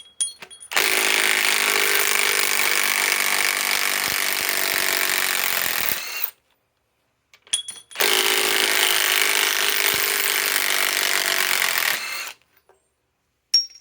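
Milwaukee M18 Fuel 3/8-inch compact impact wrench hammering steadily in two runs of about five and four seconds, backing out four-inch fasteners.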